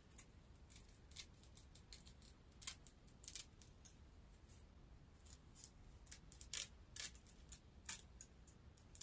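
Scissors snipping through a wig's lace front: about a dozen short, sharp snips at an irregular pace.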